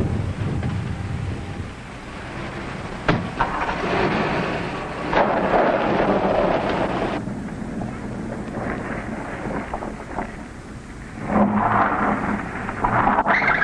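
A car driving on a road: engine running with road rumble that swells and fades as it moves, with a sharp knock about three seconds in.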